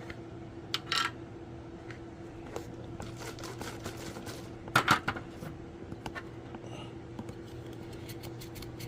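Small clicks and rubbing as the battery terminals of a handheld CB radio are wiped clean with an alcohol-dampened cloth, over a steady low hum. The louder clicks come about a second in and near five seconds.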